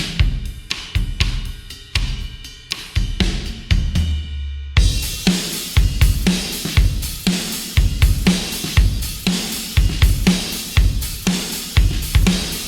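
Sampled hard-rock drum kit from the EZdrummer 3 Hard Rock EZX library playing a steady groove of kick, snare, hi-hat and cymbals. About five seconds in it moves into a fuller, louder section with ringing cymbals over a driving kick-and-snare beat.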